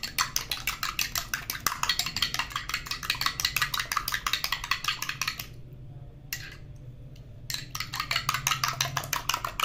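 A raw egg being beaten in a small ceramic bowl, the utensil clicking against the bowl at about seven strokes a second. It stops for about two seconds in the middle with a single click, then resumes.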